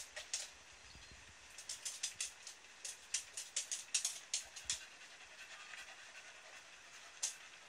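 Raindrops ticking sharply and irregularly on a nearby hard surface during a thunderstorm, a quick cluster of ticks in the middle and scattered ones later, over a faint hiss of rain.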